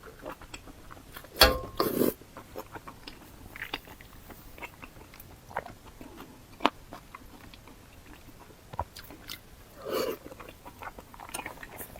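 Close-up mouth sounds of someone biting and chewing pig's ear, with crunching from the cartilage. A few louder bites come about a second and a half in, near the middle and about ten seconds in.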